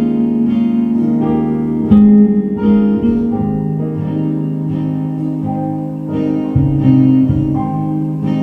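Live band music with no singing: an instrumental passage of a pop song led by plucked guitar over a bass line.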